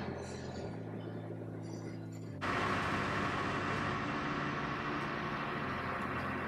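Steady mechanical hum of a ship's interior with a low drone. About two and a half seconds in it jumps to a louder, fuller hum that then stays even.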